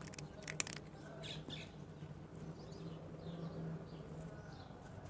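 Faint small birds chirping, in short falling chirps that repeat throughout. A few sharp clicks come about half a second in.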